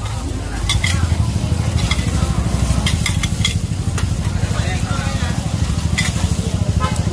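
Metal spatula scraping and clacking against a large flat griddle while mussel omelettes fry and sizzle on it, with sharp metal clicks every second or so. Underneath runs a steady low drone that grows louder about a second in.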